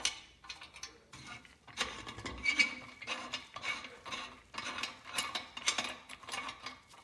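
Rusty nut being twisted off the threaded centre rod on the lid of a Northwestern Model 60 vending machine's globe. The seized metal threads grate in a run of short scrapes and clicks, about two or three a second.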